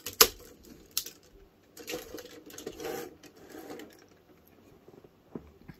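Hard plastic parts of a Chou ToQ-Oh combining robot toy clicking and rattling as its shield piece is fitted onto the arm: a sharp click just after the start, another about a second in, then a couple of seconds of plastic scraping and rattling, with a faint click near the end.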